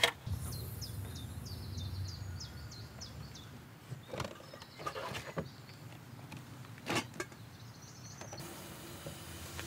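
A few sharp knocks and clatters as camping gear is handled at a car's open boot, with a small bird chirping in the background. A low rumble of wind on the microphone fills the first few seconds.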